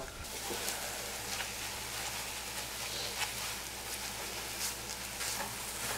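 Lean ground turkey sizzling as it browns in a nonstick frying pan: a steady hiss with faint scattered crackles.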